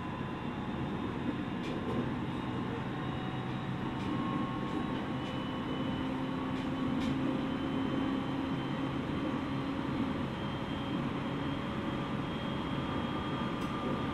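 Running noise heard inside a JR East 701 series electric train car (KuMoHa 701): a steady rumble of wheels on rail with faint whining motor tones that drift slightly in pitch.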